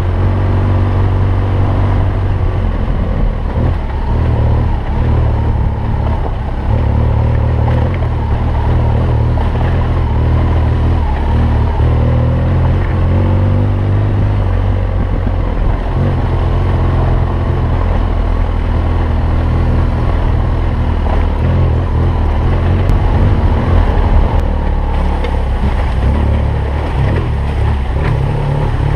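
Motorcycle engine running steadily as the bike is ridden, a continuous low drone with noise over it.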